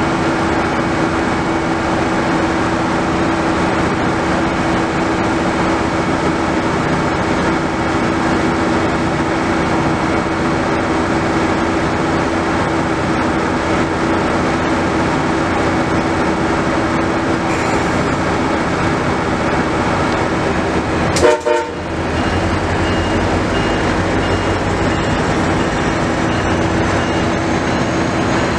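MARC diesel locomotive standing and idling close by: a steady, loud engine rumble with a held hum. About 21 seconds in, a short sharp burst cuts through it.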